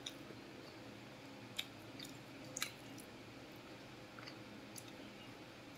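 Quiet chewing of a mouthful of rice and side dishes, with a few small sharp mouth clicks and smacks, the clearest about one and a half and two and a half seconds in.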